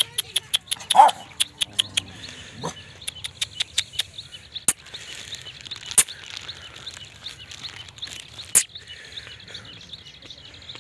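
A small dog barks once, loudly, about a second in, with a brief higher yelp soon after, among many sharp clicks that come quickly at first and then more sparsely. Birds chirp steadily in the background.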